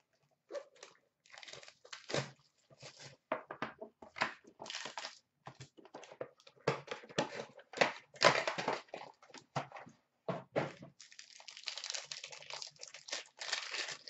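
Plastic wrapping crinkling and tearing as a trading-card box and its pack are opened by hand: irregular rustles and short rips, turning into denser crinkling in the last few seconds.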